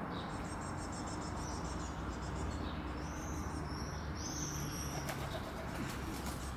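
Small birds chirping in short, high, arched notes, several in a row in the middle, over a steady low rumble of outdoor background noise.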